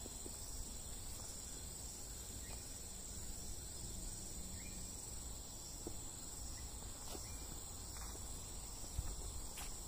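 Insects shrilling in one steady, unbroken high-pitched drone, with a faint low rumble beneath.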